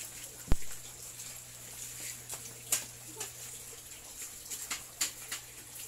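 Scattered light taps and clicks, with one sharp thump about half a second in, over a steady low hum.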